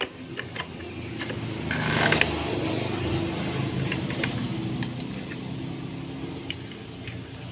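A motor vehicle engine running, getting louder about two seconds in and then holding steady, with a few light metal clicks from a motorcycle clutch assembly and washer being fitted by hand.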